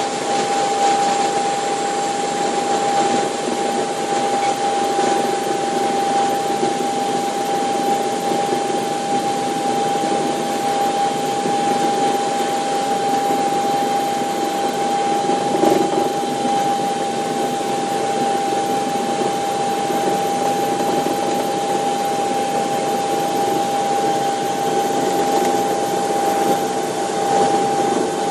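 Bell 430 twin-turbine helicopter heard from inside the cockpit on final approach: steady engine and rotor noise with a constant high whine running through it.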